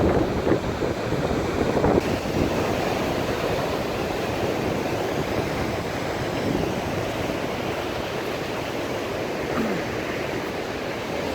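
Storm surf and wind: a steady rushing noise of waves breaking, with gusty wind buffeting the microphone.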